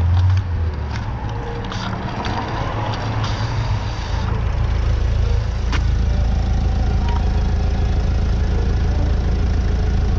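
A van's engine idling alongside a stopped bicycle, a steady low rumble. Early on, wind noise on the microphone drops away as the bike slows, with a few light clicks.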